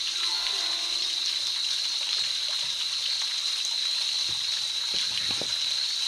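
Night rainforest ambience: a steady high-pitched insect chorus over an even hiss. A pitched call glides downward in the first second, and a few soft ticks come near the end.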